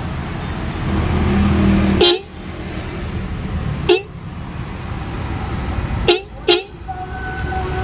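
Aftermarket electric motorcycle horn given four short toots: one about two seconds in, one near four seconds, then two in quick succession a little after six seconds, over steady street noise.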